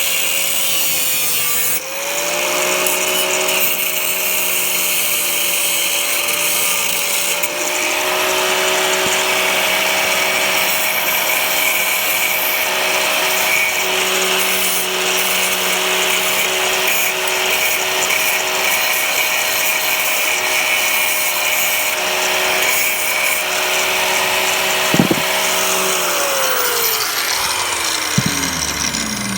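Angle grinder with a cut-off disc cutting metal: a steady motor whine under a harsh cutting hiss. Near the end it is switched off and its whine falls away as the disc spins down.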